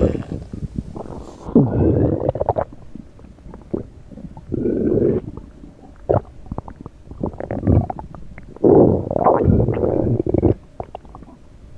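A stomach growling and gurgling in irregular bursts of bubbling rumble, the longest and loudest stretch about nine seconds in.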